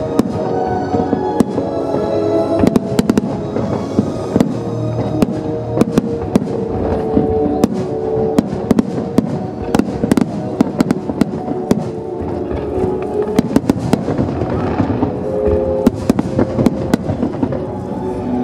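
Fireworks display: aerial shells bursting with many sharp bangs and crackles in quick succession, while music plays steadily underneath.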